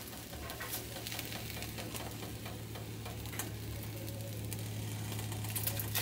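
Egg Beaters omelet frying quietly in a nonstick pan, a soft steady sizzle flecked with small crackles, over a steady low hum.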